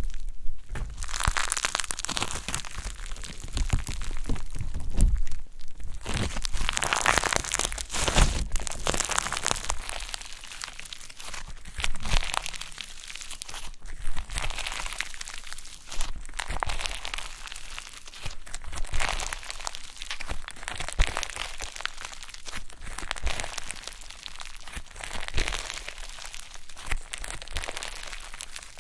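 Yellow slime mixed with foam balls being stretched, folded and squeezed by hand: dense, irregular crackling and crunching as the slime tears and the beads pop, coming in waves as the hands work it.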